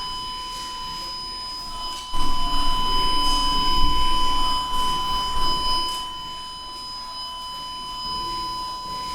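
Steady 1004 Hz telephone-line test tone, a pure continuous beep, played through a transmission test set's monitor. Some light handling noise and faint clicks come in about two to six seconds in.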